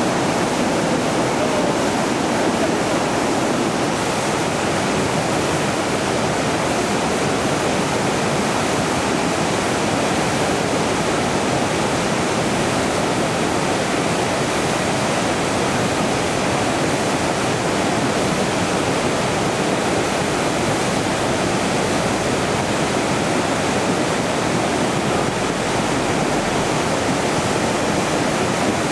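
The Río Saja in flood: a swollen, muddy river rushing past, a loud, steady rush of water with no let-up.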